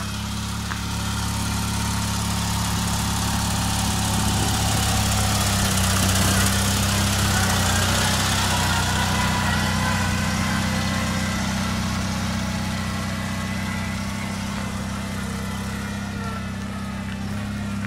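Bolens garden tractor engine running steadily, growing louder about a third of the way in and easing off again, with a few clicks near the end.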